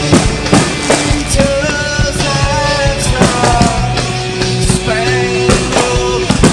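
Rock song with a sung vocal line over drums and guitars.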